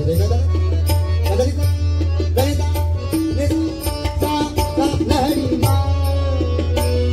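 Tabla playing a steady rhythm under a harmonium melody, as accompaniment in a Marathi devotional bhajan (abhang).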